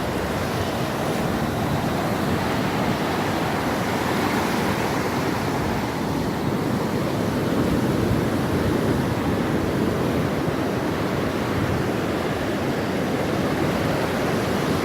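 Rough ocean surf driven by an approaching hurricane, a steady rush of breaking waves, with wind on the microphone.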